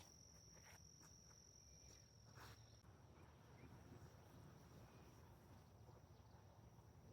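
Faint, steady high-pitched insect trill, typical of a cricket, louder for about the first three seconds and then fading to a weaker trill. A few soft clicks and a low wind rumble lie beneath it.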